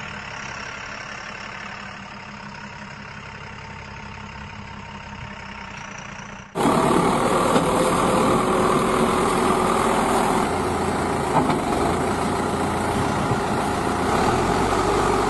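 Heavy diesel engine running steadily at idle. About six and a half seconds in, the sound jumps suddenly to much louder, rougher engine noise of heavy machinery working close by.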